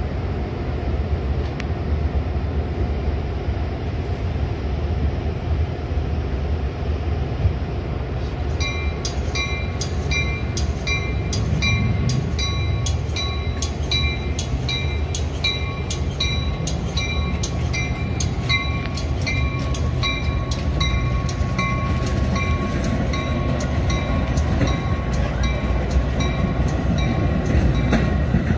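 Metra commuter train of bi-level cars rolling past with a steady low rumble. From about eight seconds in, a warning bell rings steadily, a stroke roughly every two-thirds of a second, stopping near the end.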